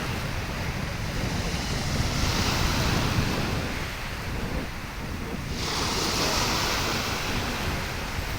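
Red Sea waves washing in, swelling twice with a hiss, over a low rumble of wind buffeting the microphone.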